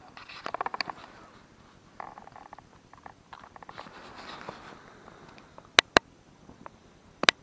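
Handling noise in an ice-fishing tent: rustling with short runs of rapid clicking, then three sharp loud clicks, two close together about six seconds in and one more near the end.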